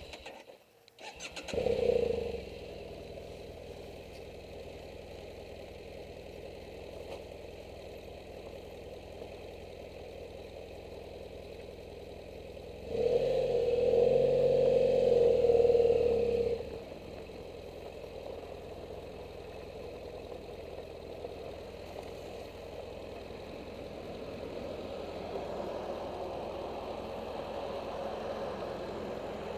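BMW F800GS parallel-twin engine being cranked on the starter and catching about two seconds in, then running steadily at idle and low speed. Around the middle, a louder engine rev lasts about three seconds.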